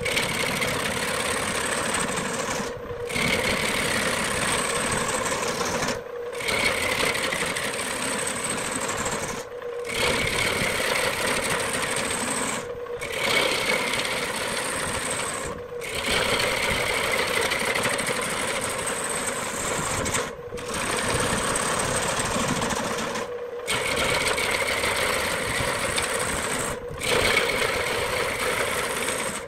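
Belt-driven wood lathe running while a turning tool cuts into a large spinning wooden blank, a steady motor hum under the rough, continuous noise of the tool shearing off chips. The sound cuts out briefly about every three seconds.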